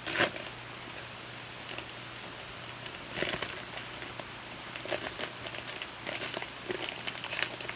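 Plastic wrapping of a trading-card box loader being handled and opened by hand, crinkling in irregular crackles from about three seconds in.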